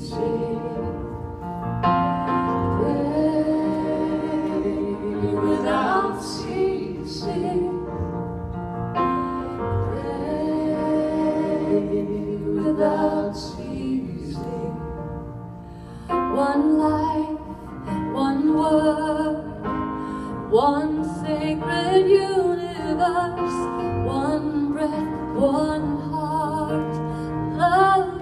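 Live song: a woman singing a slow melody with electric keyboard accompaniment.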